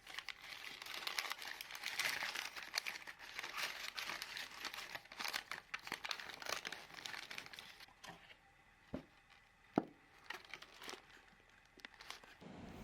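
Paper or plastic wrapping crinkling as it is handled, dense and continuous for the first eight seconds or so, then thinning to scattered rustles and a few sharp clicks.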